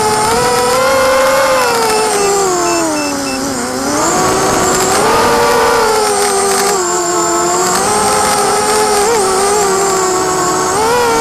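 DYS BE1806 brushless motors spinning 5045 propellers on a 260-size FPV quadcopter, heard from its onboard camera: a whine whose pitch rises and falls with the throttle. It sinks lowest about three and a half seconds in, then climbs again.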